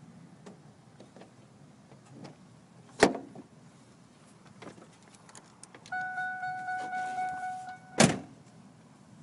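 A car door thuds shut about three seconds in. Later a car's warning chime dings steadily for about two seconds, cut off as a door thuds shut a second time.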